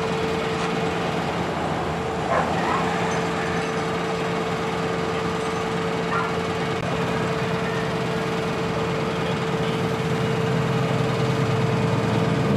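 A vehicle engine running steadily with an even hum, and one brief louder sound about two and a half seconds in.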